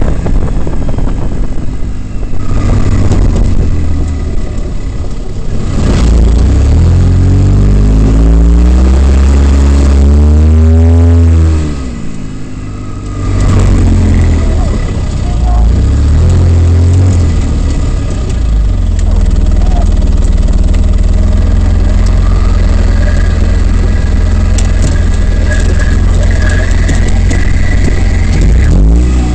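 Polaris RZR side-by-side's engine heard from inside the open cab while driving a trail: it revs up steadily from about six seconds in, drops away suddenly around twelve seconds, picks up again, and then runs at a steady drone, rising once more at the very end.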